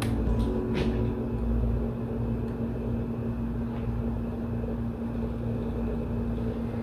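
Steady low machine hum holding one constant tone, with a couple of faint rustles of cloth being handled in the first second.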